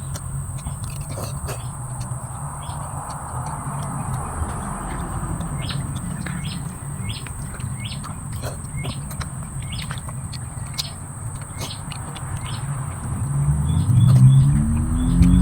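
Outdoor ambience with small birds chirping in short repeated notes over a steady high insect drone and a low rumble. Near the end a louder pitched sound rises in pitch.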